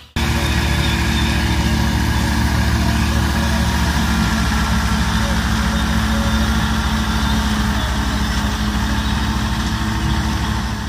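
Massey Ferguson 385 tractor's diesel engine running steadily under load, driving a PTO-powered straw chopper whose rotor and blower add a steady rushing whir as chopped wheat straw is blown into the trolley. The sound starts abruptly and fades away near the end.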